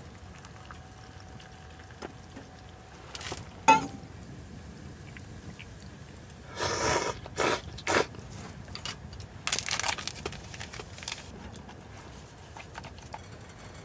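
Things being handled at close range: short bursts of rustling and scraping with small clicks, and one sharp knock with a brief ring about four seconds in.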